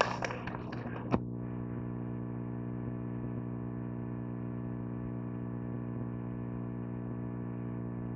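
Microphone handling noise ending in a sharp click about a second in, then a steady electrical hum from the hall's sound system, with many evenly spaced overtones and an unchanging level.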